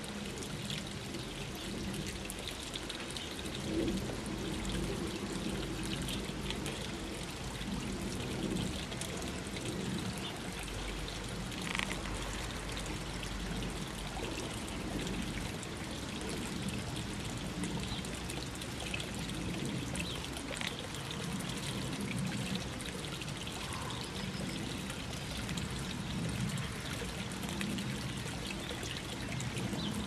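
Garden watercourse trickling and pouring steadily over stones, with a common blackbird splashing lightly as it bathes in the shallow water.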